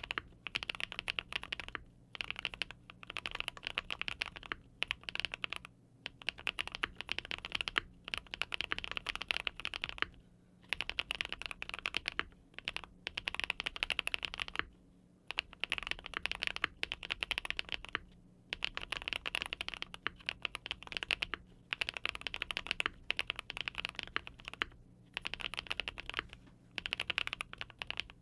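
Monsgeek M1 custom mechanical keyboard with linear switches being typed on fast, in runs of quick keystrokes broken by short pauses every couple of seconds.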